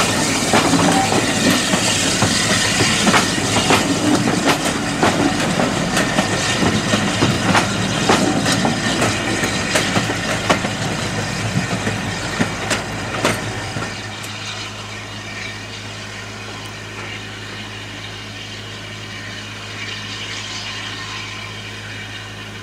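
Steam train of passenger carriages rolling past close by, its wheels clicking over the rail joints. About fourteen seconds in the sound drops off to a quieter, steady rumble as the train draws away.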